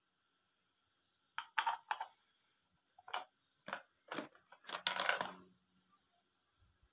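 Small plastic toy pots and lids clicking and clattering as they are handled and set into a cardboard toy-kitchen box: a run of short sharp knocks starting about a second and a half in, the busiest cluster near the end.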